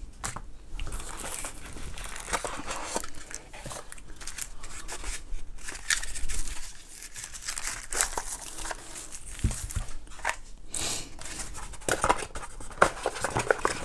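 Cardboard box and paper packaging being handled and unpacked: irregular rustling and crinkling with scattered light knocks and clicks.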